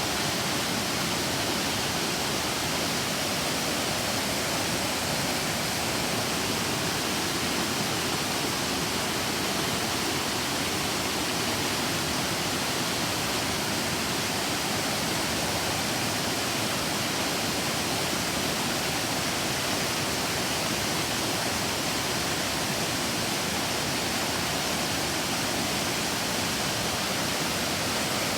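River waterfall: water pouring down in a steady, even rush that does not change.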